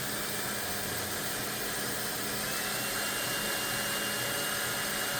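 Electric drill running steadily, turning a paint-mixer attachment in a can of thick paint.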